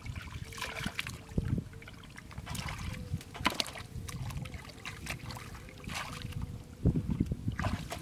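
Hands groping and digging in mud and shallow muddy water: irregular wet squelches and splashes, with heavier sloshes about a second and a half in and again near the end.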